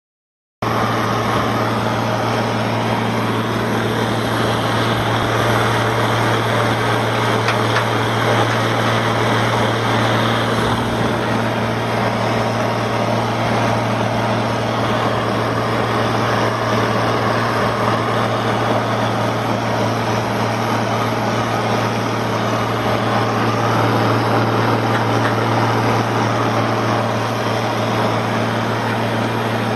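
International Harvester 1256 tractor's turbocharged six-cylinder diesel running steadily under load while it pulls a Gehl discbine cutting hay, heard from the operator's seat. An even, unchanging engine hum that starts about half a second in.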